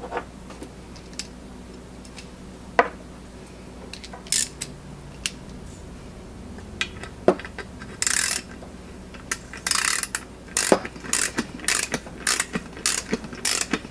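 Socket ratchet clicking in repeated short bursts as it tightens a brass ball valve fitting into the lid of a paint pressure tank. A few scattered metal clicks of the socket and tools being handled come first, and the ratchet bursts start about eight seconds in.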